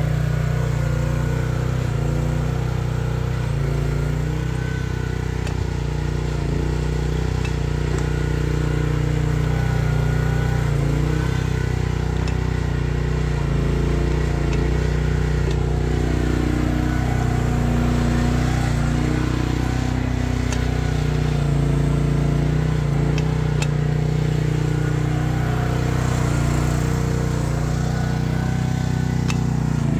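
Chery one-ton mini excavator's Briggs & Stratton 13.5 horsepower engine running steadily as the machine digs, its note wavering slightly as the hydraulics take load. A few faint clicks sound over it.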